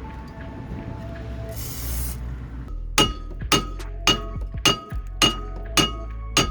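Background music: a mixed, washy passage, then about three seconds in a steady beat of bright, bell-like clinks starts, roughly two a second, over a low bass.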